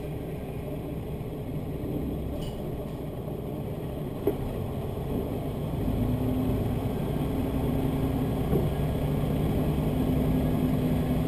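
Diesel railcar engine heard from inside the car as the train pulls away slowly from a stop, its low drone growing louder, with a steady hum from about six seconds in. A single short knock about four seconds in.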